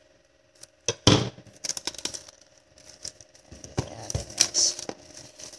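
Clear plastic shrink-wrap being torn and crinkled off a smartphone box: a run of sharp crackles and rustles starting about a second in.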